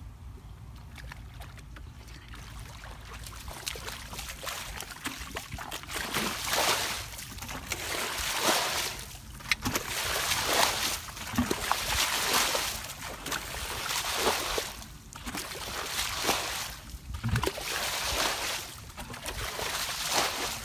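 Muddy pond water splashing as a plastic bucket scoops it up and throws it out, in repeated splashes about one every second or two. The splashing starts about a quarter of the way in.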